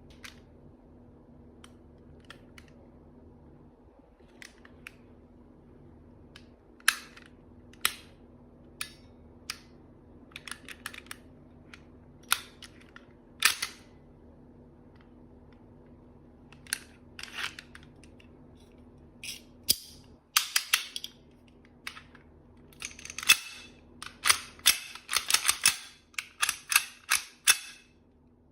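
Toy plastic-BB (airsoft) gun being worked and fired: sharp clicks and snaps at irregular intervals, sparse at first, then coming in quick clusters over the last few seconds.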